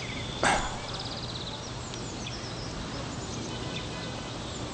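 Small birds chirping and trilling repeatedly over a steady low background hum, with one brief, loud rustle-like noise about half a second in.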